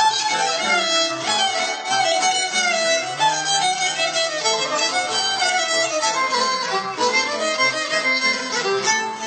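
Dance music led by a violin playing a moving melody over band accompaniment, amplified through loudspeakers.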